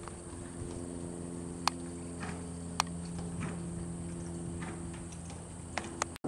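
Ridden horse moving over soft arena sand: muffled hoof footfalls with a few sharp clicks scattered through, over a steady low hum.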